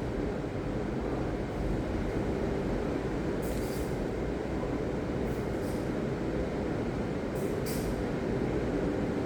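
Ocean surf: a steady rumble of breaking waves, with a few brief higher hisses.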